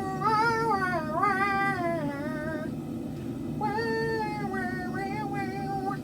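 A high-pitched voice singing or warbling two long phrases whose pitch bends up and down, with a pause of about a second between them, over a steady low hum.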